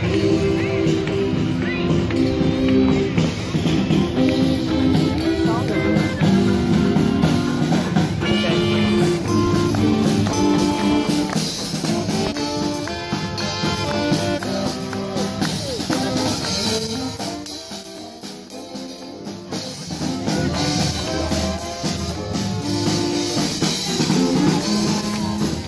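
A marching string band playing live as it passes, banjos strumming under saxophones and horns, dropping quieter for a few seconds about two-thirds of the way through.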